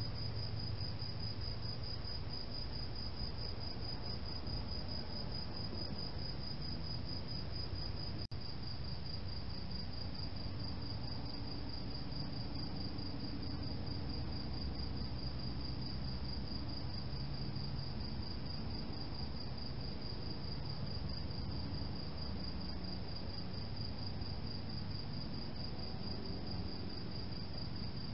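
Crickets chirping in a steady, rapid, even pulse, a high thin trill that never stops, over a low steady hiss.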